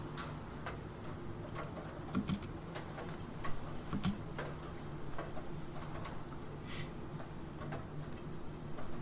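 Computer keyboard keys being typed, irregular sparse clicks over a steady hiss of rain. Two short low hooting sounds come about two and four seconds in.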